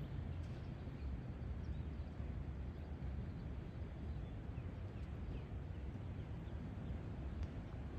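Steady low outdoor rumble with a few faint, short bird chirps through the middle.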